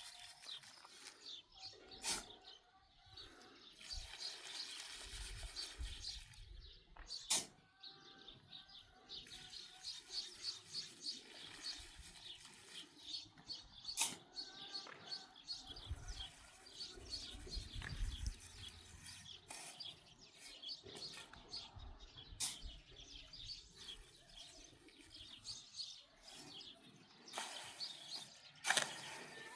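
Small birds chirping over and over, with a few sharp clicks or knocks scattered through, the loudest near the middle and near the end.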